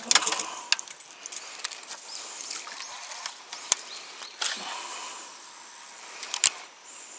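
Fishing tackle handled in a small boat: rustling and knocking of rods and gear, then a baitcasting reel being cast and wound. There are sharp single clicks about three and a half seconds in and again near the end.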